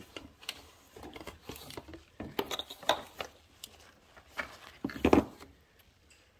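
A hand working among the parts around a car engine's thermostat housing: scattered clinks, rustles and knocks of metal and plastic, the loudest knock about five seconds in.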